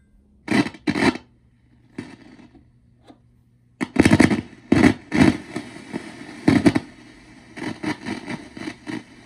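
Silvertone 1431 tube amp crackling and popping through its speaker in loud irregular bursts, over a low hum that comes in about two seconds in, as the preamp tube is touched and the volume control turned. The amp is sensitive and crackly: the crackle fault under diagnosis.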